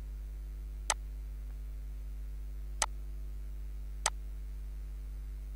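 Three sharp computer mouse clicks, about a second in, near three seconds and about four seconds in, as on-screen buttons are clicked, over a steady low electrical hum.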